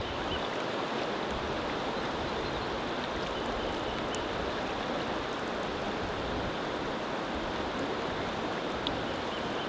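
Steady rush of a river flowing over a gravel bed.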